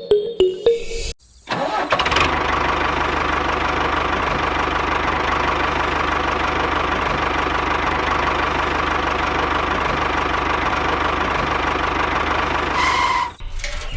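An engine running steadily, a rough mechanical drone with a fast low pulse. It starts about a second and a half in and cuts off suddenly near the end. A moment of music is heard at the very start.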